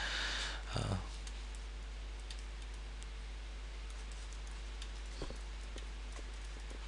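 Faint, scattered clicks and taps from handwriting on a computer with a pen input, over a steady low electrical hum. There is a short breathy rush and a soft thump in the first second.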